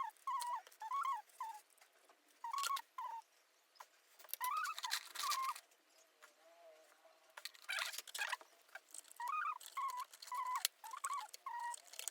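Short pitched bird calls repeated in clusters, several a second, with bursts of scratchy rustling between them.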